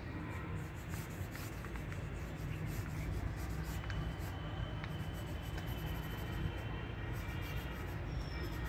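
Pen scratching on drawing paper in many short, quick strokes as a figure is sketched, over a steady low rumble.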